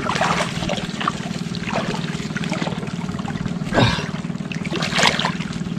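River water splashing and sloshing around men wading chest-deep, with a few sharper splashes in the second half.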